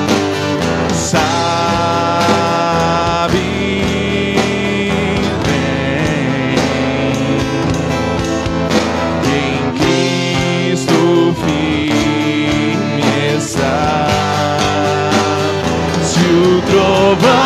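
A slow Portuguese-language gospel worship song with acoustic guitar, between sung lines.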